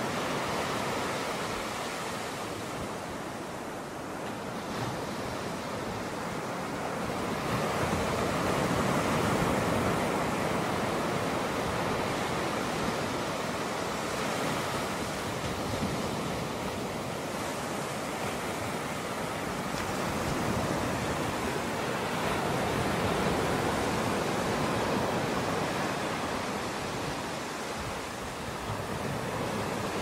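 Pacific Ocean surf washing in over the shore, a steady rush that swells and eases every several seconds.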